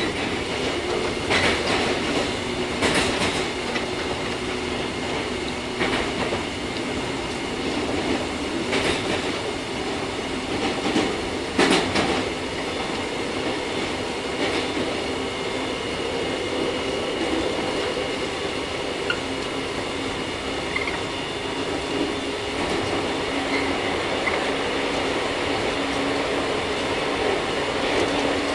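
JR 415 series 100-subseries electric multiple unit running at speed, heard from inside the car: a steady rumble and motor drone, with a few sharp clacks from wheels over rail joints, mostly in the first half.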